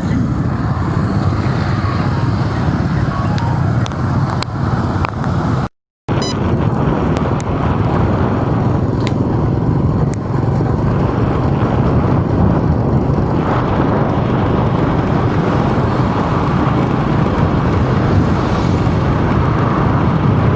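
Steady rumble of road and engine noise from a vehicle driving in city traffic. The sound cuts out completely for about half a second just before six seconds in.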